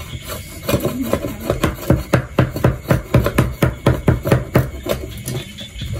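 Cleaver chopping rapidly on a wooden chopping block: a fast, even run of knocks, about five a second.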